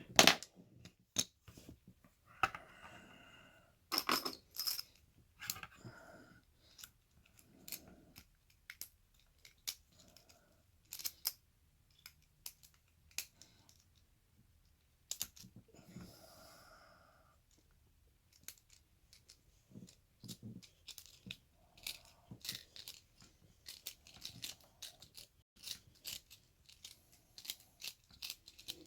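Irregular small metallic clicks, taps and brief scrapes of tools and padlock parts being handled as an American Lock 1100 padlock is taken apart.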